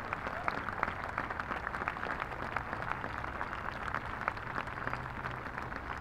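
Applause: a dense, irregular patter of many hand claps.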